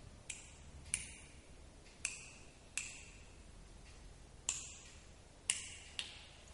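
Seven sharp clicks at uneven intervals, each followed by a short ring, over a faint steady hiss.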